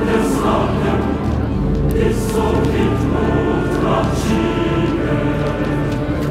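Choral music: a choir singing sustained, held chords.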